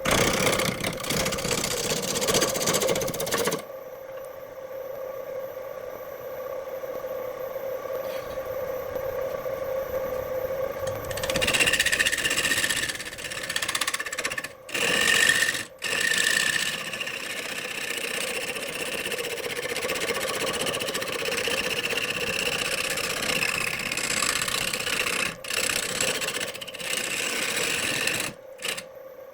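Woodworking power tool running with a steady motor hum, its tool grinding against the workpiece louder and softer in stretches, broken by a few brief cuts.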